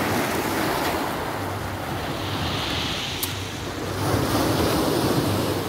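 Sea waves washing onto the shore, a steady surf noise that swells louder about four seconds in, with wind buffeting the microphone.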